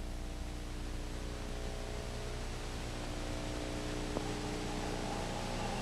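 Diesel engine of a motor grader running steadily under a haze of hiss, with a small tap about four seconds in.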